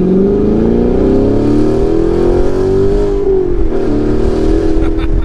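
C7 Corvette Grand Sport's 6.2-litre LT1 V8 through an AWE Touring cat-back exhaust with X-pipe, heard from inside the cabin, pulling hard under acceleration. The pitch climbs steadily, falls back a little about three seconds in, then holds steady.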